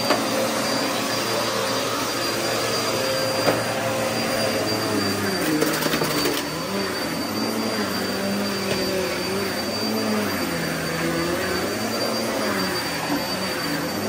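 Commercial upright vacuum cleaner running on low-pile carpet, with a steady high whine over a motor hum that rises and falls as it is pushed back and forth. A few brief clicks of debris being sucked up come a few seconds in and again around the middle.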